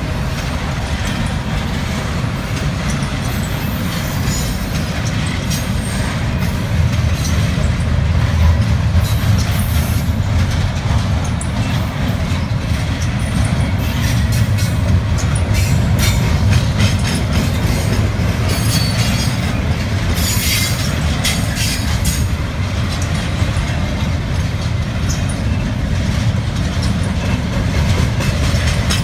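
Double-stack container train's well cars rolling past close by: a steady low rumble of steel wheels on rail, with scattered clicks and rattles and a few brief high squeals.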